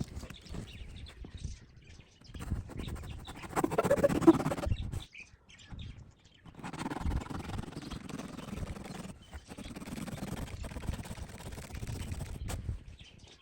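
Birds calling and chirping, loudest about four seconds in.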